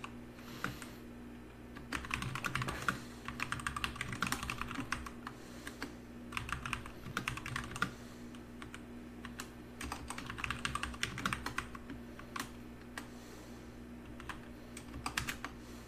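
Typing on a computer keyboard: bursts of rapid keystrokes, each a second or so long, with short pauses between them.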